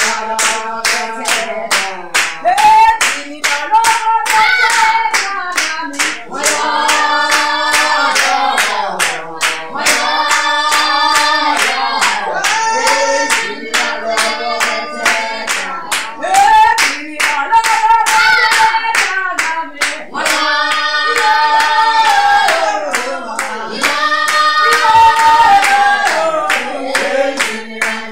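Voices singing a song with steady rhythmic hand clapping, two to three claps a second, keeping time throughout.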